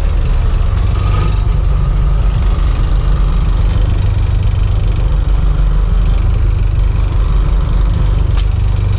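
Boat engine running steadily: a constant, loud, low drone with no change in speed.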